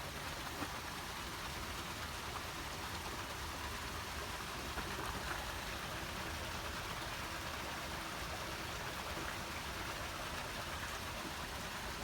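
Water rushing and splashing steadily through a working Norse mill, a small wooden watermill with a horizontal water wheel.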